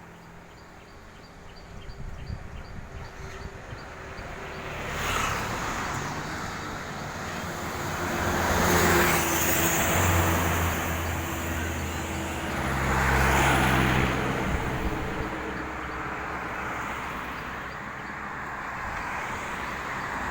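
Road traffic going past: several vehicles pass, swelling loudest about nine and thirteen seconds in, with the low, steady engine hum of heavy vehicles. No horn is heard.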